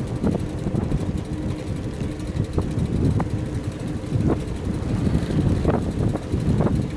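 Riding noise from a camera on a moving bicycle: a steady low rumble of wind on the microphone and tyres on the road, with scattered short clicks.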